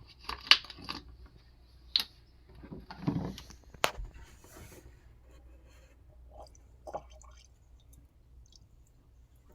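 Water being poured into a Keurig coffee maker's water reservoir, with a few sharp clicks and knocks of handling in the first four seconds.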